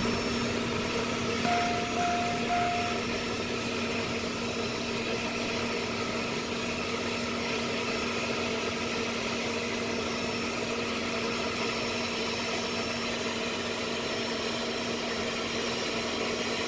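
Embraer Phenom 100's right Pratt & Whitney Canada PW617F turbofan running at ground idle just after its start, heard from inside the cockpit as a steady engine rush with a constant low hum. Three short beeps sound about two seconds in.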